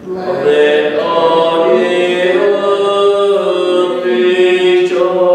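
Voices singing a hymn in slow, held notes, the last note sustained to the close.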